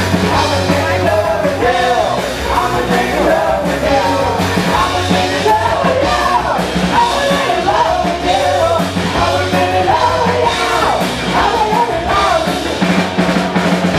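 Live rock band playing loud, punk-style rock: a bowed cello over electric bass and a drum kit with cymbals.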